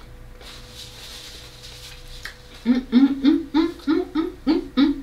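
A woman's voice vocalizing a tune in short, rhythmic sung syllables, about three a second. It starts a little over two seconds in, after a quiet stretch of room noise.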